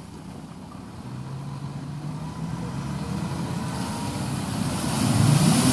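Toyota Land Cruiser engine pulling under load as the SUV churns through deep mud, running steadily at first, then revving harder and getting louder near the end.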